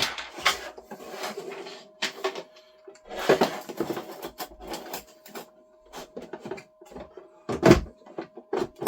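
Hands working on the plastic parts of a Bambu AMS filament unit with pliers: scattered clicks, small knocks and rustling, with one louder knock about three quarters of the way through. A faint steady tone hums underneath.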